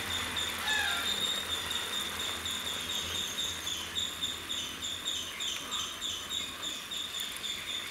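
Insects chirping steadily, a high, evenly pulsed chirp repeating about three times a second.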